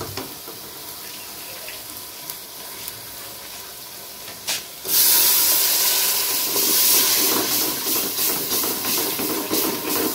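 Water poured into a metal pot of hot fried garlic-and-spice masala bursts into a loud hiss of steam and sizzling about five seconds in, easing off gradually. Before that, only the faint sizzle of the frying masala.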